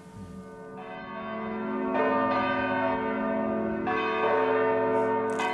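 Abbey church bells ringing: several deep, long-sustained tones swell in, with fresh strikes about two and four seconds in.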